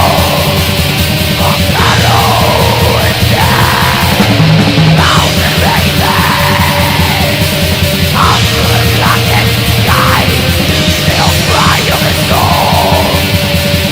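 Heavy metal music: a dense, loud wall of distorted guitars and fast drumming, with harsh screamed vocals coming in and out.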